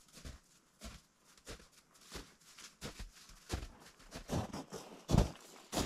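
Footsteps in snow at a steady walking pace, about one or two steps a second, growing louder and closer together from about halfway through.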